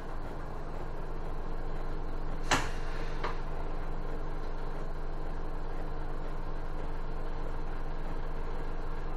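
Isuzu city bus engine idling steadily, heard from inside the cabin, with a sharp click about two and a half seconds in and a softer one just after.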